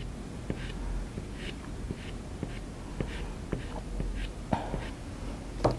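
Soft pastel stick scratching on textured pastel paper in short, repeated strokes.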